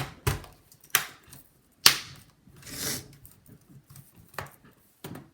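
Plastic clips of an HP Pavilion laptop's bottom cover snapping into place as the case is pressed together: a series of sharp clicks, about five in five seconds, the loudest near two seconds in, with a brief scraping rustle around the middle.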